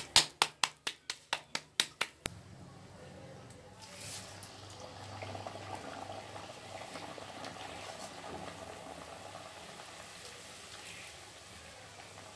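Hands slapping a disc of stuffed dough between the palms, about ten quick pats in the first two seconds. Then a potato kachori deep-frying in hot oil in an iron kadhai, a steady sizzle.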